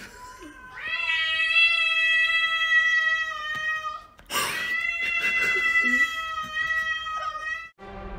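Cats caterwauling in a standoff: long, drawn-out yowls of about three seconds each, one after another with a short break between, cut off abruptly near the end.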